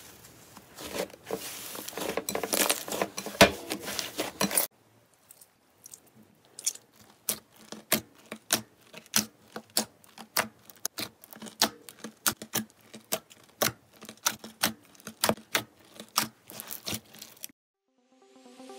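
Slime being worked by hand: for the first four and a half seconds hands squish a foamy, glittery slime with a dense crackling squelch. Then fingers poke a jelly-like slime, each press giving a sharp, wet click at about three a second.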